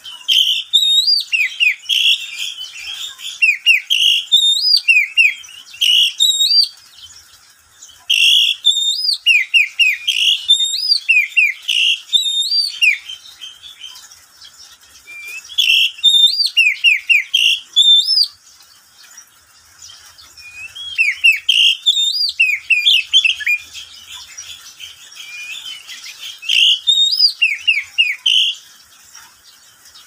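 Caged Oriental magpie-robin singing: loud, fast phrases of sweeping rising and falling whistles, delivered in bouts of a few seconds with short pauses between them.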